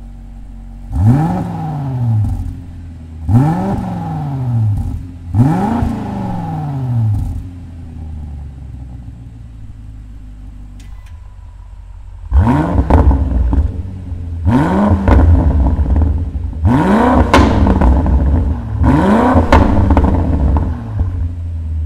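BMW F90 M5's 4.4-litre twin-turbo V8 revving through an Eisenmann stainless steel cat-back exhaust, first with its exhaust flaps closed: three quick throttle blips, each rising and falling in pitch. A few seconds of steady idle follow, then from just past halfway four louder blips.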